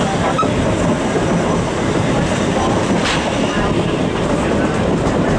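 Narrow-gauge train rolling along the track, heard from aboard: a steady rumble and clatter of the coaches' wheels on the rails.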